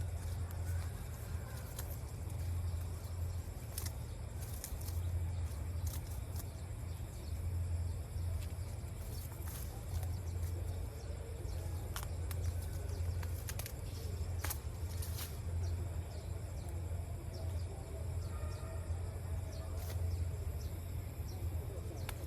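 Outdoor ambience: a steady low rumble, with scattered sharp clicks and a few faint bird chirps.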